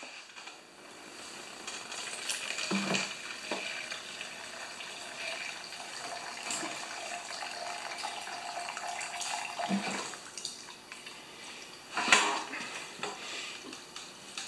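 Gasoline pouring out of a small engine's fuel tank into a plastic cup as the tank is drained, a steady trickling stream for several seconds that stops about ten seconds in. A sharp clunk follows about twelve seconds in.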